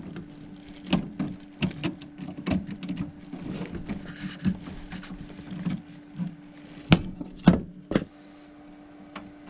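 Irregular clicks, scrapes and knocks of hands bending and pushing stiff wires inside a metal breaker panel, with three sharper knocks close together about seven seconds in. A steady low hum runs underneath.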